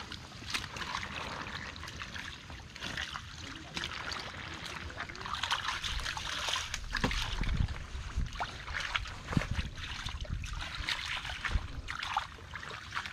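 Footsteps squelching in wet mud and a hooked rod prodding the mud and dead leaves, with many small clicks and crackles and a few heavier wet thuds midway.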